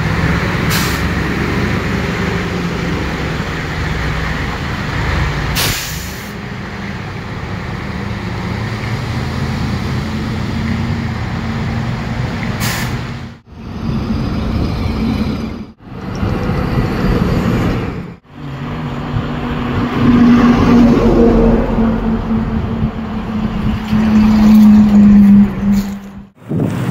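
Heavy diesel trucks driving past on a highway, engines running over tyre and road noise, in several short clips that cut off abruptly. A steady low drone holds for several seconds near the end.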